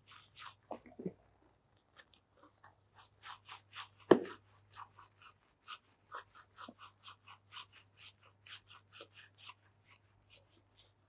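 Fingers scrubbing a lathered scalp during a shampoo: rhythmic, scratchy rubbing at about three strokes a second, with one sharp knock about four seconds in and a faint steady hum underneath.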